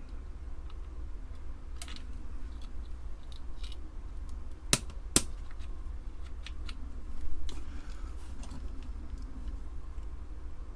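Small plastic clicks and taps of Amiga keyboard keycaps being fitted over their springs and pressed down, with two sharp clicks about half a second apart near the middle.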